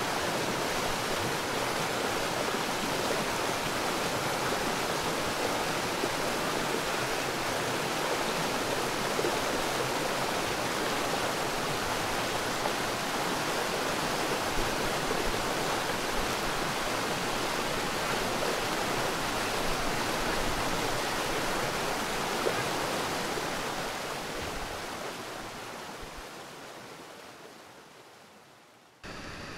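Whitewater rapids at high flow rushing steadily around a kayak as it runs the rapid, fading out over the last few seconds.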